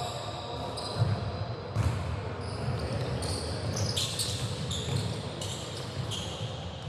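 Basketball game on a hardwood gym floor: the ball bouncing and players' feet thumping, with short high sneaker squeaks, all echoing in the gym. Two sharper knocks come about one and two seconds in.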